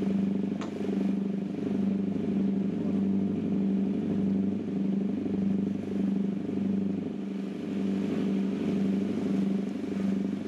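Cruise boat's engine droning steadily underway, with an even throb a little under twice a second.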